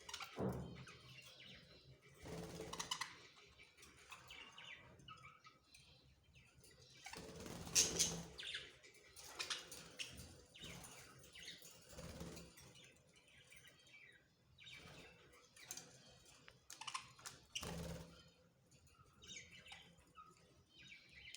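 Budgerigars chirping in short, irregular calls, with some rustling and fluttering in between, loudest about eight seconds in.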